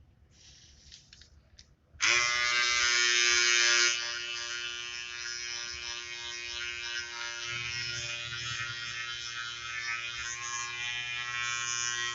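Wahl GroomsMan Pro cordless trimmer switched on about two seconds in, running with a steady electric buzz. It is loudest for the first two seconds, then runs on a little quieter.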